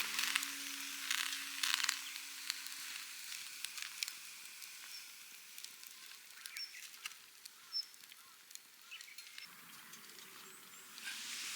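Faint crackling and hissing with scattered sharp pops, typical of a wood campfire burning. Background music fades out in the first few seconds.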